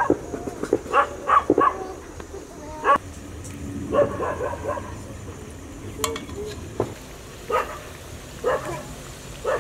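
A dog barking in short bursts, several in quick succession at first, then singly at intervals.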